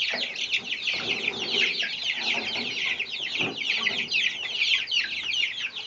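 A flock of young Silkie chicks peeping constantly: many short, high, falling peeps overlapping one another without a break.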